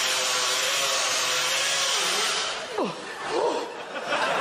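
Hand-held electric drill running with a steady motor whine, cutting out a little over two seconds in. A brief, sharply falling sound and a few short pitched sounds follow.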